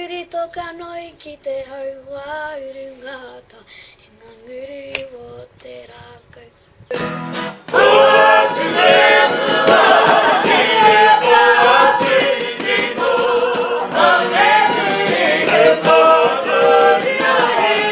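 A girl sings a melody alone and fairly softly. About eight seconds in, a Māori kapa haka group takes over, singing a poi song loudly together in many voices.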